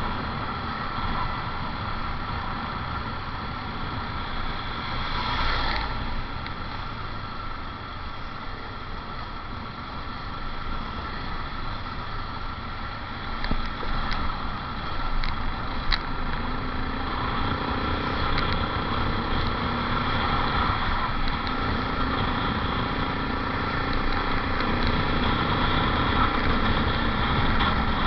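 Yamaha Jupiter MX 135 underbone motorcycle's single-cylinder four-stroke engine running while riding, mixed with wind and road noise on the bike-mounted microphone. A few sharp clicks come about halfway through.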